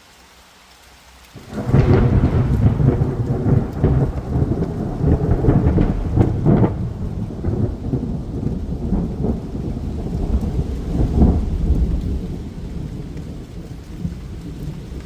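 Thunder from a close lightning strike. It breaks in suddenly with a loud crash about a second and a half in, crackles and rumbles in several peaks, then slowly fades into a long low rumble.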